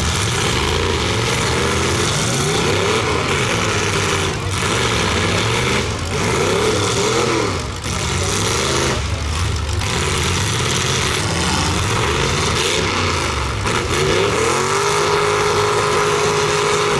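Several big sedans' engines revving hard in a demolition derby heat, their pitches climbing and falling over one another as the cars accelerate and back up. Near the end, one engine holds a steady high rev.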